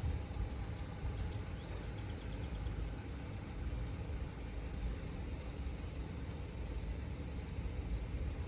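Steady low outdoor rumble of background noise, with a few faint high chirps about two seconds in.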